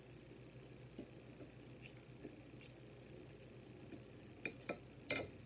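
Quiet chewing with a few sharp clicks of a fork against a plate as food is cut, the loudest clicks near the end.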